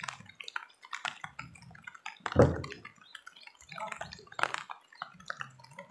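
Water splashing and dripping, with many scattered short clicks and knocks and one louder thump about two and a half seconds in.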